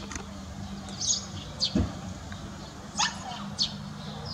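Short high chirps of small birds calling at intervals, over a steady low hum, with one dull thump about two seconds in.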